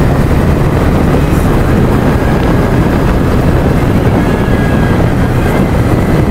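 Motorcycle riding at a steady speed: a constant low rumble of engine and wind noise on the microphone, unchanging throughout.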